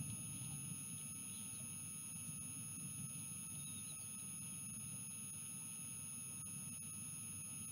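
Steady electronic whine from the nest camera's audio, several fixed high tones, over a constant low rumble of wind. Two faint chirps come about a second and a half in and again about four seconds in.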